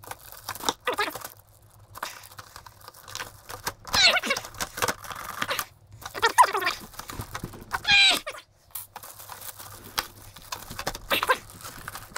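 Plastic wrapping crinkling and tearing as it is pulled off a new RC truck, with irregular handling rustles.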